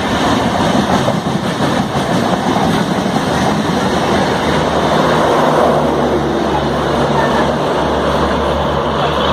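A train running past at close range: a loud, steady rumble and clatter of wheels on rail. A low steady hum joins about six seconds in.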